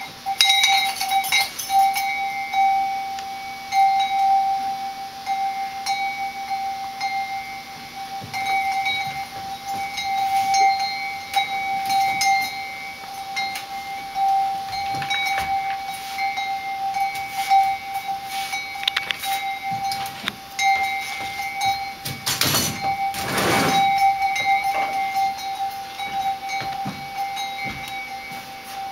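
One sustained electronic keyboard note held throughout, swelling and fading slightly in strength, with scattered knocks and rustles over it. About 22 seconds in, a loud rushing noise lasts a couple of seconds.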